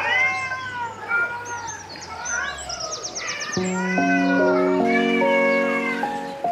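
Cats meowing over and over in short calls that bend up and down in pitch. About halfway through, background music with held notes comes in under the meows.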